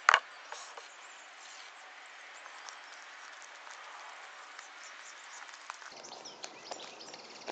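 Faint, steady outdoor garden background with small birds chirping, more clearly in the last second or so, and one short loud sound right at the start.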